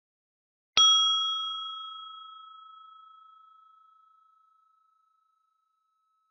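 Small brass bell struck once, ringing with a clear high tone that fades away slowly over about four seconds.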